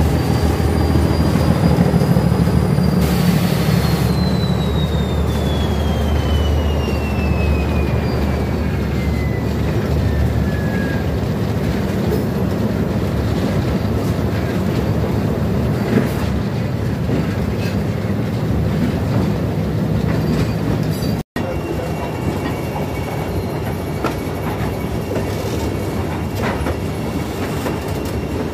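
A freight train on the move: a locomotive's engine rumbles under steady wheel-and-rail noise, and a high whine falls slowly in pitch over several seconds. After a cut about two-thirds of the way through, tank wagons roll past with wheel and rail noise and a faint squeal.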